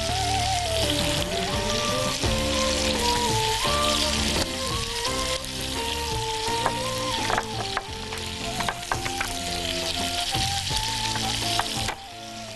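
Frying pan sizzling steadily on the stove, under background music with a stepping melody. A few sharp taps of a utensil on cookware fall in the second half.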